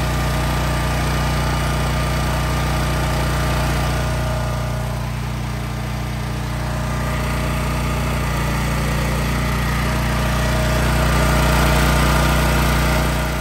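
Champion 100485 electronic-fuel-injected portable generator engine running steadily under a light electrical load during its break-in period.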